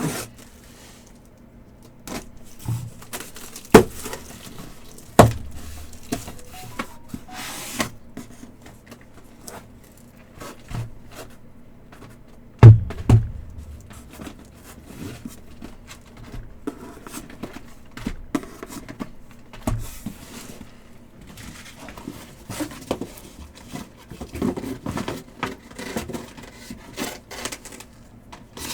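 Cardboard hobby boxes and foil card packs handled on a tabletop: scattered knocks and thuds as boxes are set down, the loudest about 13 seconds in, with tearing and crinkling of wrapping between.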